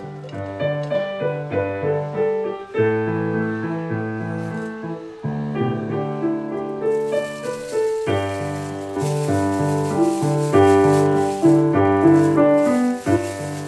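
Background piano music: a light melody of distinct notes over a steady bass line.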